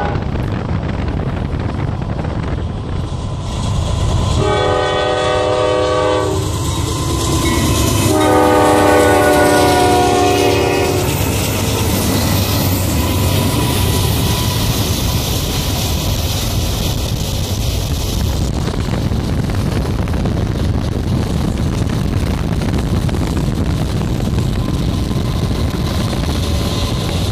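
Freight locomotive air horn sounding two long blasts, the first about four seconds in and the second, longer one about eight seconds in, with the tail of an earlier blast at the very start. Under it runs a steady rumble of the passing freight train mixed with road and wind noise from a car moving alongside.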